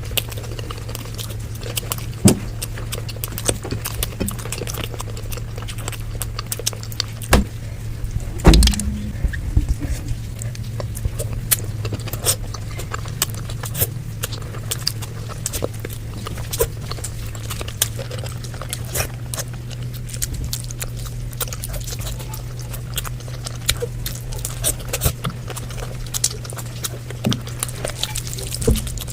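Close-miked mukbang eating: chewing and mouth clicks, with many sharp clicks throughout and a heavier thump about eight seconds in, over a steady low hum.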